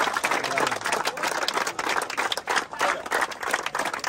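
A crowd of young men applauding, many hands clapping fast and overlapping into a dense, continuous round of applause.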